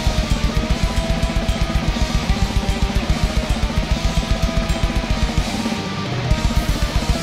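Black metal played on two distorted electric guitars, an Ibanez and an ESP through Kemper amplifiers, over a rapid, even double-kick drum beat with cymbals. The kick drum drops out briefly about six seconds in, then resumes.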